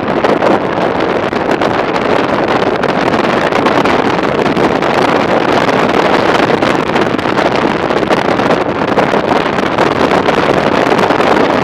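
Wind rushing over the microphone of a camera on a Honda ST1300 motorcycle riding at road speed: a loud, steady rush of noise that covers any distinct engine note.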